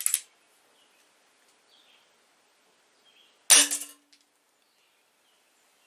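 A single shot from a CO2-powered Remington 1875 replica air pistol firing a pellet through a chronograph: one sharp crack about three and a half seconds in, with a brief ringing tone after it. A short, fainter click comes at the very start.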